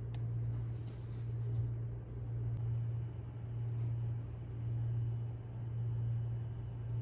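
Steady low hum that swells and fades gently about every second and a half.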